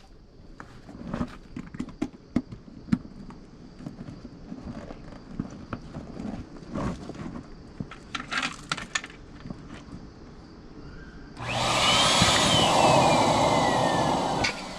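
Scattered clicks and handling noises as an inflatable RV skirting tire wedge and its valve are worked. Then, about eleven seconds in, an electric air pump starts and runs for about three seconds, inflating the wedge, with a whine that falls in pitch as it runs.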